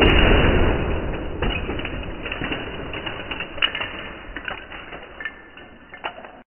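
Lego Technic Dodge Charger model smashing into a Lego Technic Land Rover Defender model: a loud clatter of plastic parts that fades over about a second and a half. Scattered clicks and rattles of loose Lego pieces follow, thinning out, and the sound cuts off suddenly near the end.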